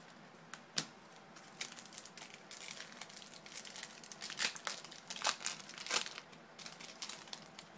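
Wrapper of a baseball card pack crinkling and tearing as the pack is opened by hand: a sharp click about a second in, then a run of crackly rustles, loudest in the second half.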